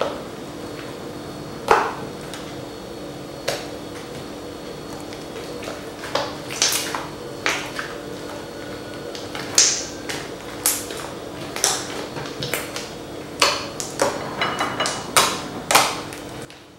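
Glue-based fluffy slime made with foaming hair conditioner, pressed and poked by hand. Its trapped air pockets pop with sharp, irregular clicks that come more often in the second half.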